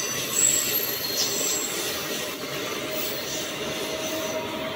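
Indian Railways passenger coaches rolling past along a platform: the steady noise of wheels running on the rails, with thin high-pitched wheel squeals over it.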